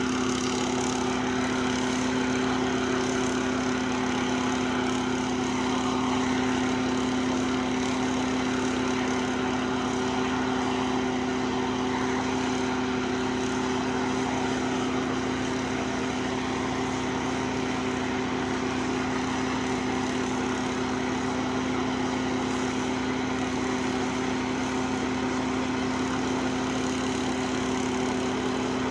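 Small portable engine-driven machine of a rail-welding crew running steadily at constant speed, giving a continuous even hum with a strong low tone.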